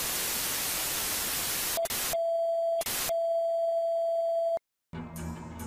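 Television static hiss, then a steady test-card tone broken twice by short bursts of static. The tone cuts off, and after a brief silence music with guitar and drums starts near the end.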